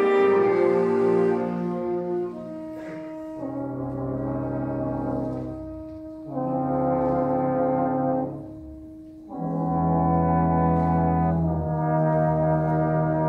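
Concert band of woodwinds and brass playing a slow passage of long held chords, the band swelling into a new chord about every three seconds and easing off between them.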